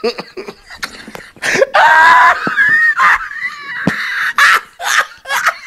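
Men laughing hard while trying to hold it in: a loud, high-pitched squeal of laughter about a second and a half in, then several wheezy, breathy bursts.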